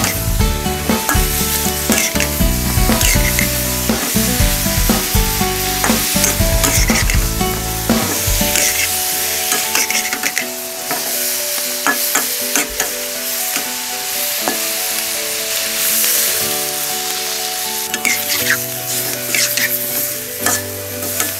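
Sauced chicken feet sizzling in hot oil in a wok, with a metal spatula repeatedly stirring and scraping against the pan.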